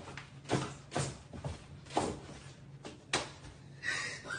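Several short sharp knocks or thumps at uneven intervals, with a brief high tone near the end.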